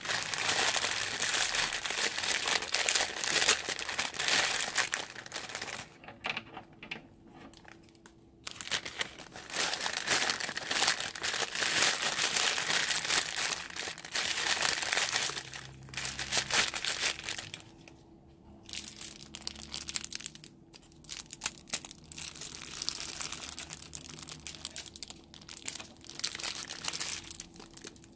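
Clear plastic piping bags crinkling and rustling as they are squeezed and handled to push foam beads and foam eggs out into a glass bowl. The crinkling comes in long bouts, with short pauses about six and eighteen seconds in, and grows more broken up in the last third.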